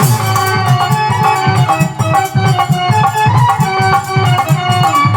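Instrumental interlude of Indian folk devotional music: a steady drum beat with shaken percussion under a held melody line.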